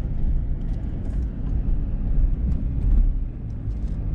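Road and engine noise heard inside a moving car's cabin: a steady low rumble with a few faint ticks.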